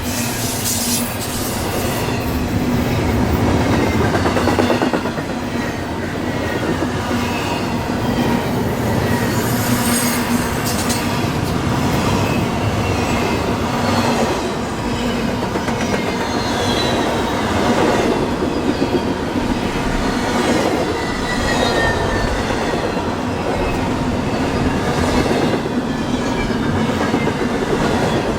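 A CSX intermodal freight train's cars rolling past steadily, wheels clicking over rail joints, with thin sliding wheel squeals now and then.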